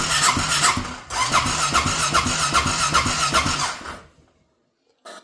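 Honda Rincon 650 ATV's single-cylinder four-stroke engine being cranked on its electric starter in two goes, a short one and then about three seconds more, with an even rhythm of compression strokes, stopping about four seconds in without running on. It is hard to start, with the fuel tank low and on reserve.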